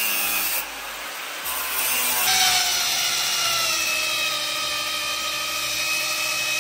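Electric drill boring into a steel plate clamped in a vise, its motor whining under load, with the pitch sagging slowly as the bit bites. The sound drops briefly about half a second in, then comes back louder.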